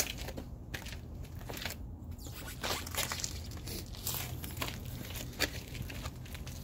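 Footsteps, light knocks and rustling as someone moves about, with a sharp click at the start and another near the end, over a faint low hum.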